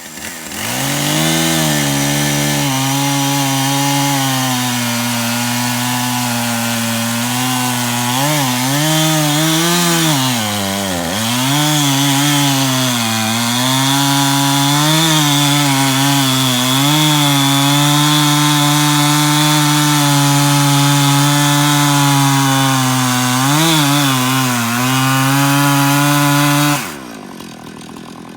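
Gas chainsaw running at high throttle as it bucks a cottonwood log, its pitch dipping several times as the chain bogs in the cut, then dropping away sharply near the end.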